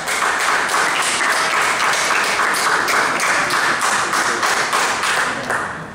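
Spectators clapping, many hands at once, dying away near the end.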